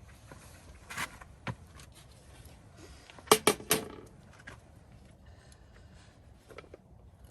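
A few sharp clicks and knocks over a low background hiss; the loudest is a quick run of three about three seconds in.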